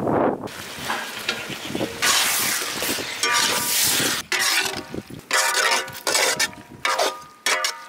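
Raw country-chicken pieces sizzling as they drop into hot oil and fried onion-tomato masala in an iron kadai. From about three seconds in, a metal ladle scrapes and rings against the pan as the chicken is stirred through the sizzling masala. The sound stops and starts abruptly several times.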